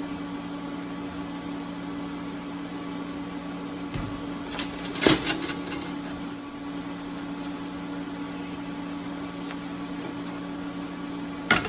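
Steady electrical or machine hum in a workshop, with a few sharp knocks about five seconds in and again near the end.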